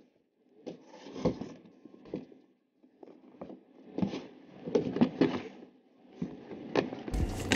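A sneaker rubbing, scraping and knocking against a clear plastic shoebox as it is worked inside by hand: irregular scuffs and bumps, several in a row.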